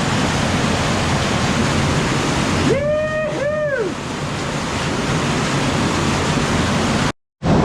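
Steady, loud rush of water from the spring-fed underground river bursting out of the cave as a waterfall. About three seconds in, a person whoops "Woo-hoo!" over it.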